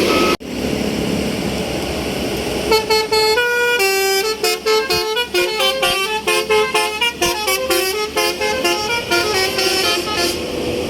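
A bus's telolet basuri horn, a multi-note musical air horn, plays a quick tune of short stepping notes for about eight seconds. It starts about three seconds in, over the bus's engine and road noise.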